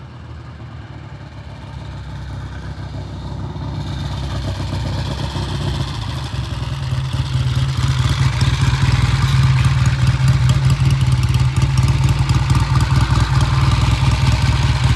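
A 1966 Triumph motorcycle's parallel-twin engine running as the bike rides up, growing steadily louder as it approaches. It runs loud and steady close by through the second half.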